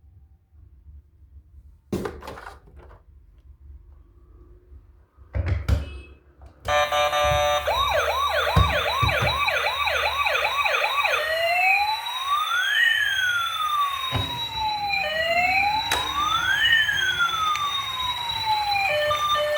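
A few handling clicks and knocks, then a toy emergency vehicle's electronic siren switches on about a third of the way in. It starts as a fast yelp, about two rises a second, then changes to a slower wail rising and falling over a few seconds. Near the end a stepped electronic beeping tune begins.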